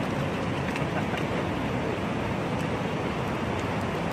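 Steady rushing of river water, with a few faint clicks.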